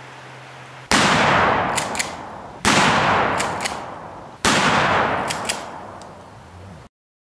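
Three identical gunshot-like booms, about two seconds apart, each with a long fading tail and a couple of faint metallic ticks; the sound cuts off suddenly near the end.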